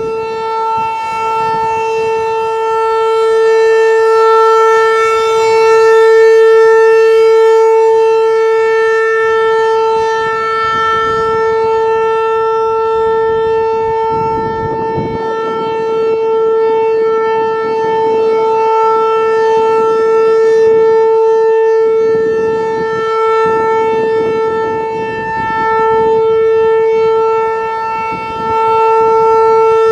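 Federal Signal 508-128 rotating outdoor warning siren sounding a full-alert steady tone. The pitch holds level while the loudness swells and fades slowly as the siren head turns.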